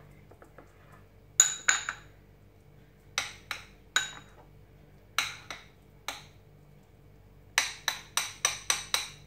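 A metal spoon clinking against bowls as it is dipped in butter and used to smooth a mound of barley porridge. Single taps are spaced out at first, then a quick run of about five taps a second comes near the end.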